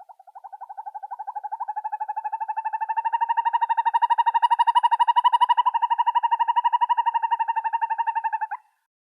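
An owl's long, rapid, even-pitched trill that swells louder over the first few seconds, holds steady, then stops abruptly near the end.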